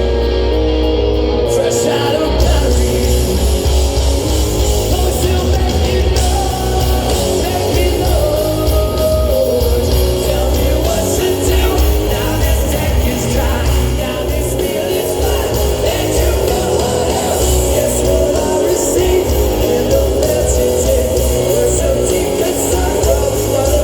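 Live rock band playing loudly, with electric guitars, heavy bass and drums under a sung vocal.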